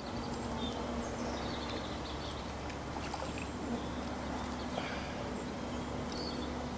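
Outdoor background with small birds chirping here and there over a steady low hum.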